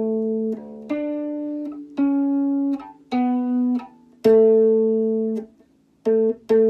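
Electric bass guitar played slowly in its high register: about seven single plucked notes in turn, most left to ring for around a second before being cut off, the longest and loudest about four seconds in, with two short notes near the end.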